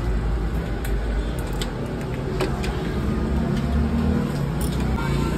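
Motor vehicle engine running in nearby street traffic, a steady low rumble that swells a little near the middle. A few light clicks sound over it.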